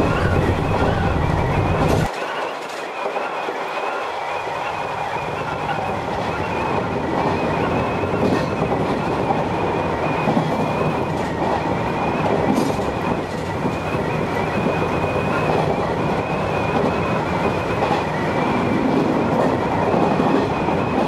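Sanyo Electric Railway electric train running, heard from inside the car: steady wheel-on-rail noise with a faint high whine and occasional clicks. A deep rumble cuts off suddenly about two seconds in.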